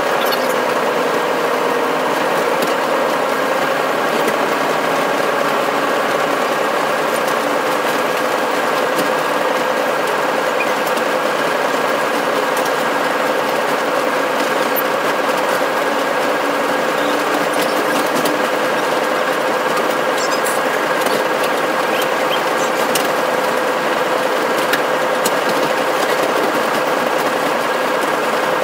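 Locomotive running, heard from inside its cab: a loud, steady mechanical drone with a constant held tone and no chuffing rhythm, and a few faint clicks in the later part.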